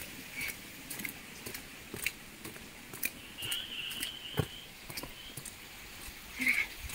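Footsteps on a dirt footpath, with short scuffs and crunches about twice a second, and grass and leaves brushing. A thin high call, from a bird or insect, sounds about three seconds in and lasts about a second and a half.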